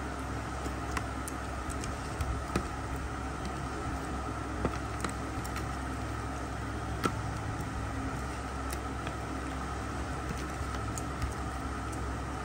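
Hands kneading spice marinade into raw chicken drumsticks in a steel bowl: scattered light clicks and taps, the loudest about seven seconds in, over a steady background hum.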